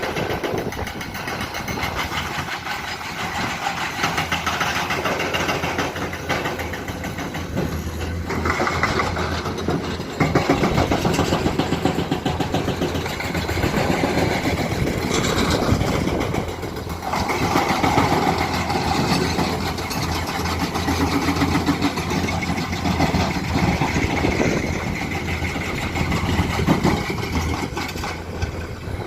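Excavator's diesel engine running under working load, with the hydraulic breaker hammering rock in rapid repeated blows. The engine swells louder a couple of times.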